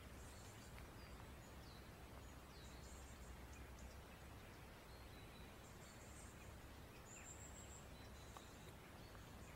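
Quiet woodland ambience: small birds give a few faint, thin, high chirps and short falling calls, with a brief trill about seven seconds in, over a low steady rumble.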